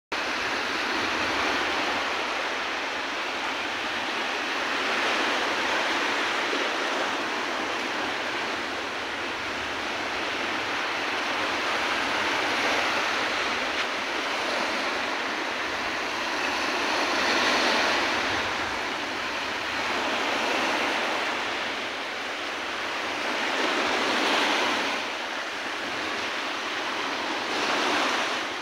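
Small waves breaking and washing up a sandy beach: a continuous surf hiss that swells louder every five to seven seconds as each wave comes in.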